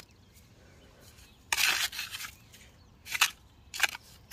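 Metal hand trowel digging and scraping through wet mud and shells, in short strokes: a longer scrape about a second and a half in, then two brief ones near the end.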